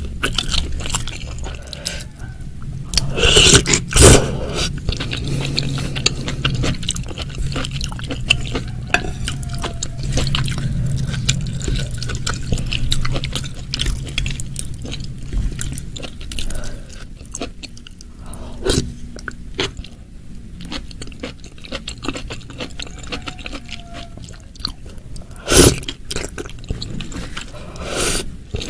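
Close-miked chewing of soft mushrooms in a thick spicy broth, with wet mouth clicks and smacks and a spoon scraping in the bowl. Two louder sudden sounds stand out, about four seconds in and near the end.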